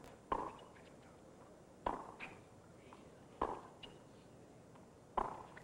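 Tennis ball struck by rackets in a baseline rally: four sharp hits about a second and a half apart, with fainter ticks between them.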